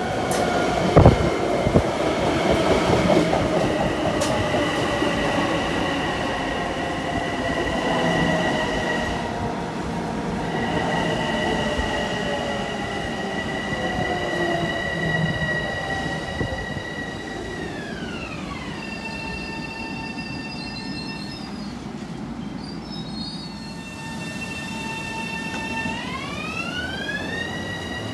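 LIRR M7 electric multiple unit running past at the platform, its electric propulsion giving a whine of several steady high tones over lower tones that fall in pitch through the first half. There are two sharp knocks about a second in. Later the high tones slide down to about half their pitch, hold, and slide back up near the end.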